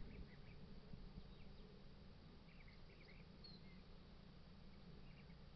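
Near silence: a faint steady low hum with a few faint, scattered short high chirps.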